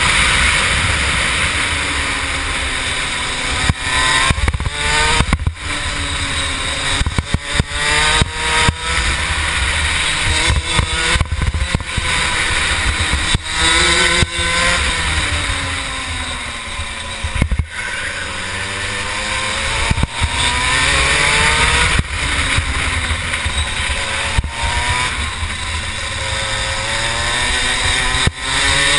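Rotax 125 two-stroke kart engine at racing speed, revving up through the gears and dropping off again several times as the kart goes round the track. Its pitch rises and falls in long sweeps, broken now and then by brief sharp dips.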